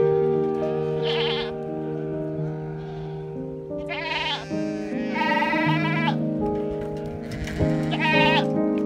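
Background music with a steady melody, with bleating over it: a short quavering bleat about a second in, then three more from about four seconds in, the third-to-last the longest.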